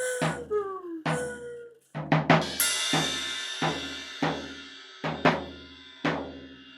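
Percussion duo playing drums: separate deep drum strokes at an uneven pace, the early ones ringing with a tone that slides down in pitch. A cymbal crash about two and a half seconds in rings on under the later strokes.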